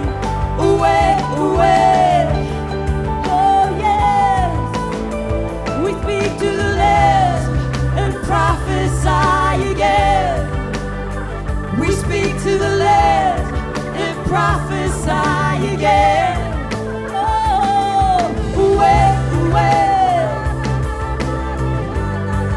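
Live church worship band playing sustained chords over a steady bass, with a voice singing long, wavering wordless phrases above it.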